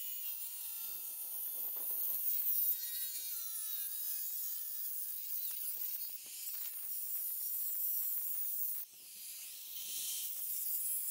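Makita angle grinder cutting into the steel side of a safe: a high-pitched whine that slides up and down in pitch as the disc bites into the metal. About nine seconds in the sound drops sharply, then builds back up.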